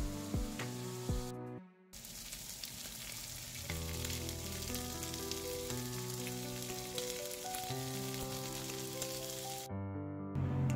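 Shrimp sizzling and crackling in hot oil in a frying pan, with background music playing over it. The sound drops out briefly about two seconds in and again near the end.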